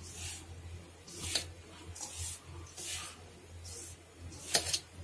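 A hand stirring and rubbing a dry mix of flour, semolina and sugar in a steel bowl: soft swishes about once a second, with two sharper clicks, the louder one near the end. A steady low electrical hum sits underneath.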